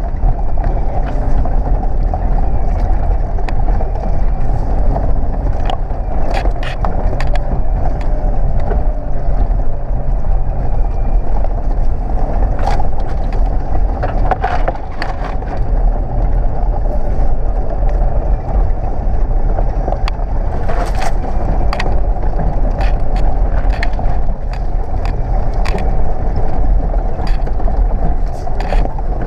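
Toyota LandCruiser 4WD driving an off-road track: a steady low engine drone with frequent short knocks and rattles.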